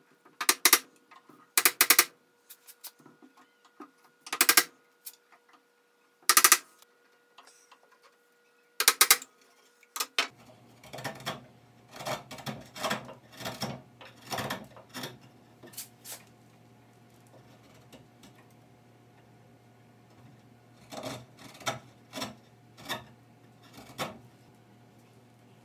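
Hand-tool work deepening hinge mortises with a chisel: five sharp knocks spaced a second or two apart, then a run of lighter, quicker taps and ticks over a faint steady hum from about ten seconds in.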